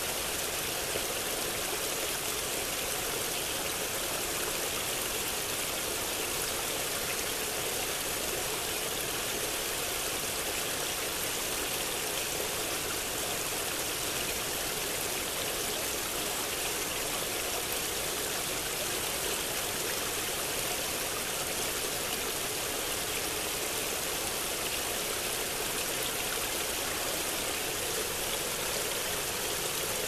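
A small forest creek running steadily over and around a jam of fallen logs: an even, continuous burble of flowing water.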